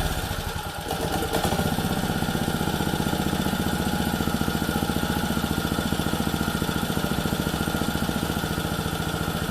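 Small four-stroke lawn edger engine running on the bench after its carburettor was cleaned. It comes down from higher speed about a second in and settles to a steady, even idle, running nicely where before it would not start.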